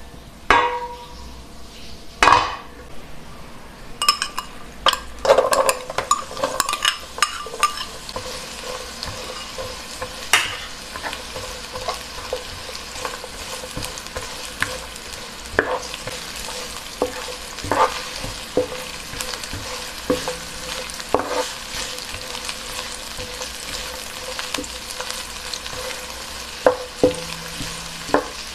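Sliced onions frying in hot oil in a non-stick wok, a steady sizzle that sets in about four seconds in. A wooden spatula stirs them, with scattered knocks and scrapes against the pan, and a couple of sharp knocks come before the sizzle starts.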